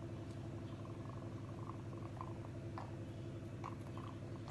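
A steady low hum with a fluttering, purr-like texture, with a few faint light clicks and taps over it.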